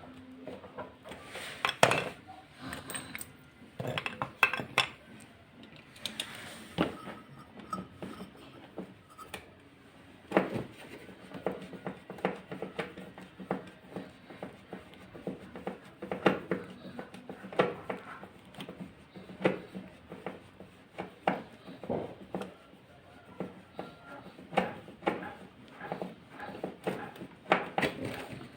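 Irregular metallic clinks and knocks, a few every second, as tools and metal parts are handled while working on a washing machine.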